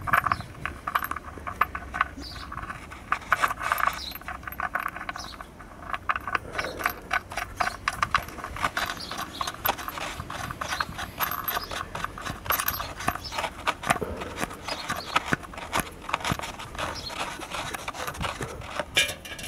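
Rapid, irregular metal clicking and light scraping as the oil drain plug bolt is screwed back into the oil pan by hand and with a wrench.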